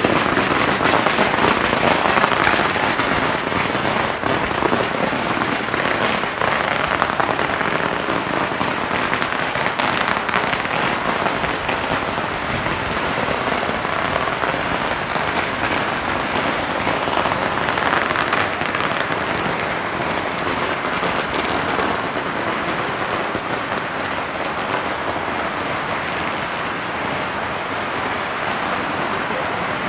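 Fireworks and firecrackers going off in a dense, continuous stream of rapid cracks and pops, easing off slightly towards the end.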